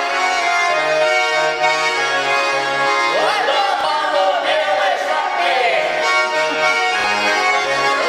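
Russian button accordion (garmon) playing a folk dance tune: a melody of held reedy notes over a steady, evenly pulsing bass-chord accompaniment.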